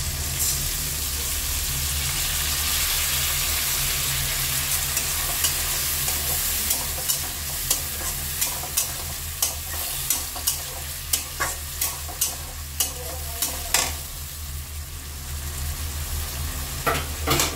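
Spice paste poured into hot oil in a metal kadai sizzles steadily. A metal spatula then stirs and scrapes the kadai, clicking about once or twice a second over the sizzle, as the masala is fried until its raw smell goes.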